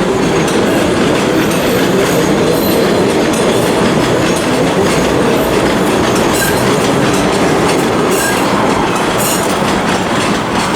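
Train running on rails: a loud, steady rumble with the clatter of wheels over the track.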